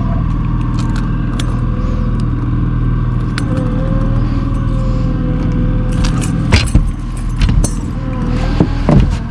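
Boat engine running at a steady drone. Sharp clicks and rattles of gear come in over it in the last few seconds.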